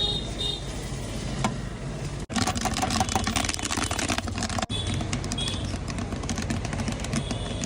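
Popcorn being made in a pan: a dense crackle of kernels popping and rattling, thickest between about two and five seconds in, over a steady low hum.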